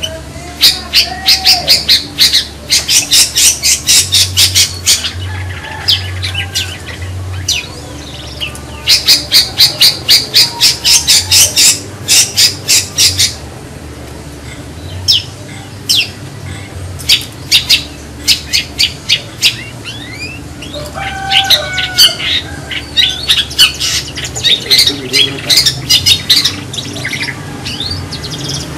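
Long-tailed shrike (cendet) giving harsh, rapid chattering calls in bursts of a few seconds, about five sharp notes a second, with short pauses between bursts.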